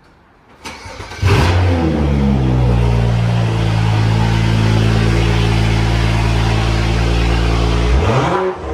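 BMW N55 3.0-litre turbocharged inline-six in a 2011 335xi cranking and firing about a second in, flaring up and then settling to a steady idle. It is the first start after new spark plugs, run to check for misfires.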